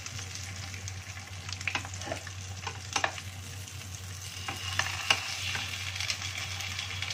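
Pork chops sizzling in hot oil in a frying pan, a steady hiss with scattered sharp pops and spatters. Occasional clicks and scrapes come from metal tongs turning the chops in the pan.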